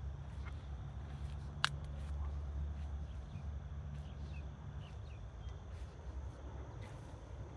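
Outdoor ambience: a steady low rumble, one sharp click about a second and a half in, and a few faint, short, high chirps near the middle.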